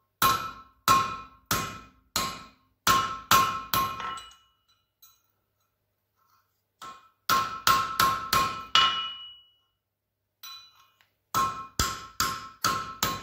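Ball-pein hammer striking a cold railway-spike bottle opener held in tongs on the anvil: three runs of light blows, each with a bright, pitched ring, separated by short pauses. The cold blows close up the opener's hook a little so it grips the bottle cap more tightly.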